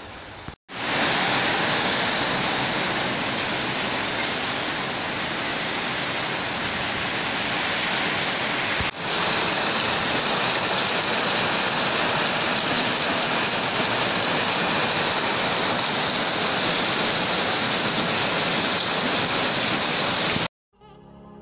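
Heavy rain pouring down, a dense steady hiss of downpour. It starts about a second in, drops out for an instant about nine seconds in, and cuts off suddenly near the end.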